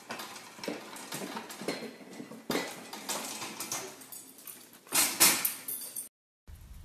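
Metal pet gate rattling and clinking as a dog works it open and pushes through, with a louder clatter about five seconds in.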